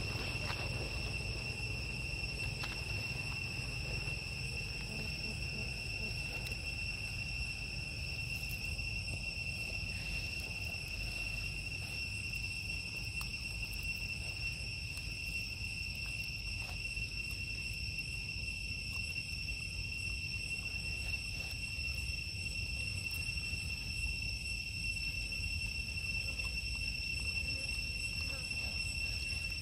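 Steady high-pitched droning of insects, one unbroken tone that holds level, over a low rumble.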